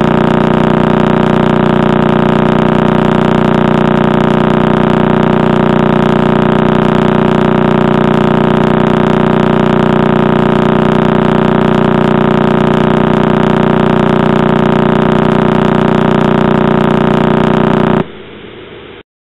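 Crab Pulsar's radio pulses played as sound: a steady, rapid buzz, its pulses coming about 30 times a second, too fast to hear one by one. Near the end it drops suddenly to a fainter hiss, which stops about a second later.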